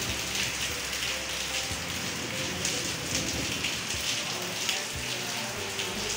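Steady rain falling on roofs and the courtyard, an even hiss of raindrops with no let-up.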